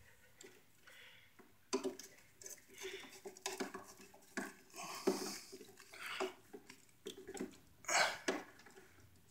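Screwdriver working the terminal screws of an electrical outlet as a wire loop is tightened under them: scattered light metallic clicks and scrapes, starting about two seconds in.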